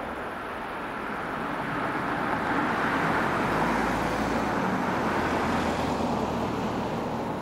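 A vehicle passing by out of view: a steady rushing noise with a low rumble that swells over a couple of seconds, holds, and fades again near the end.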